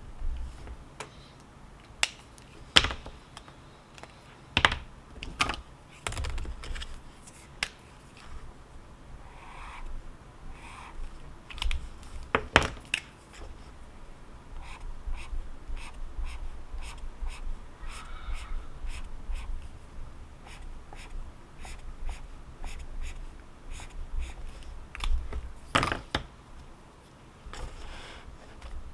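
Irregular runs of light clicks and taps from typing on a keyboard, with a few louder knocks among them.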